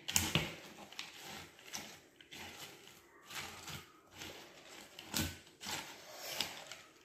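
Silicone spatula stirring cornflakes coated in melted chocolate and butter in a bowl: faint, irregular scraping strokes.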